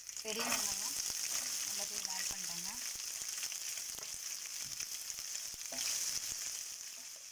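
Chopped onions frying in hot oil in a stainless steel kadai, with a steady sizzle that picks up just after the start and slowly eases off. A wooden spatula stirs them, with light scrapes and taps against the pan.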